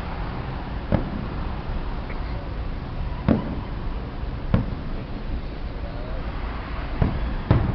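Fireworks going off at a distance: five sharp booms, irregularly spaced, the last two close together near the end, over a steady background din.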